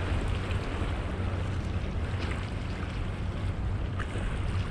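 Wind rumbling on the microphone, with small waves washing against the rocks of a jetty.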